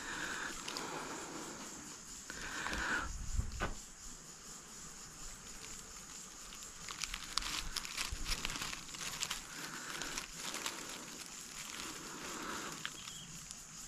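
Dry leaves and twigs rustling and crackling in irregular bursts, with a couple of soft thumps, over a steady high insect drone.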